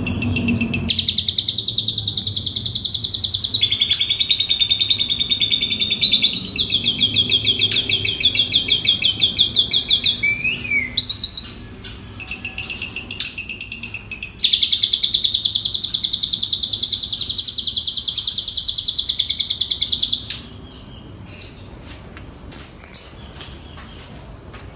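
Asian pied starling (jalak suren) singing long runs of fast, evenly repeated high chattering notes. The song softens briefly about halfway through, then breaks off near the end, leaving only faint calls.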